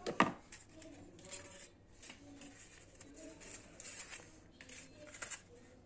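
A sharp clink of a metal knife against the batter bowl just after the start, then scattered light clicks and paper rustles as paper cupcake liners are handled over a metal tray.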